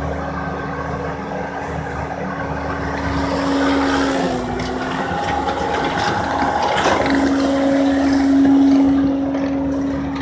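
Bobcat T650 compact track loader's diesel engine running while it works, with a steady droning tone that dips briefly about four seconds in and then grows louder.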